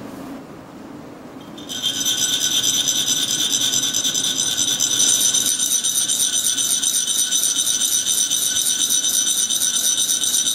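Chak-pur being played: a metal rod rubbed rapidly along the ridged metal funnel, making a fast, even, rhythmic rasp with a ringing metallic tone that vibrates coloured sand out of its tip. It starts about two seconds in and stops abruptly.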